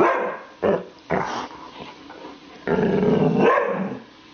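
Afghan hound barking and growling: three short barks in the first second and a half, then a longer, low growl about three seconds in.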